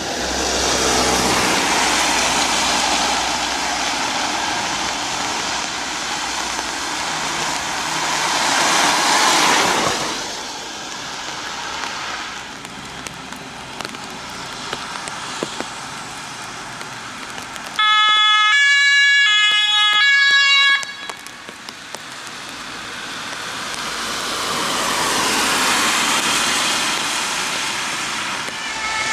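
Ambulances with German two-tone sirens (Martinshorn) driving past on a wet road. Tyre hiss swells and fades as the vehicles pass. About eighteen seconds in, a loud two-tone siren sounds for about three seconds, stepping between two pitches.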